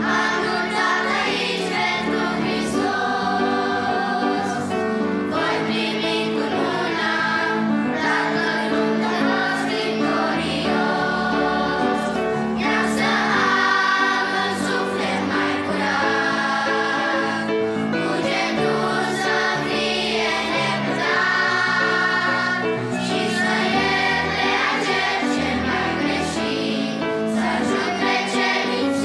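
Children's choir singing a Christian hymn in Romanian, with piano accompaniment.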